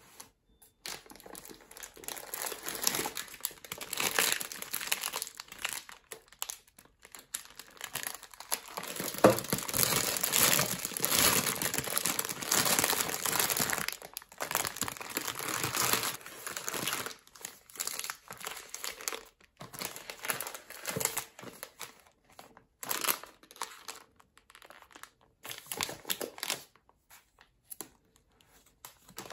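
Cellophane and plastic snack wrappers crinkling as they are handled, with irregular rustles that are densest in the middle stretch.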